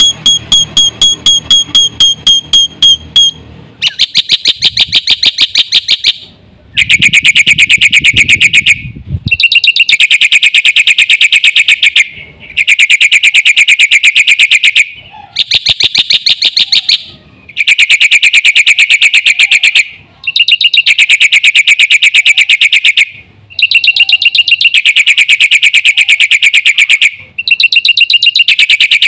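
Jalak putih (black-winged starling) calling loudly in fast, harsh, rapidly repeated notes. The calls come in bouts of two to three seconds separated by short pauses.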